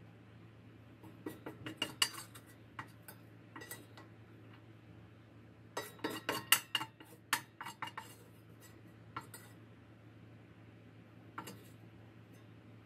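Metal kitchen utensils clinking and scraping against dishware: a run of quick clinks about a second in, a busier run midway, then a couple of single clinks near the end.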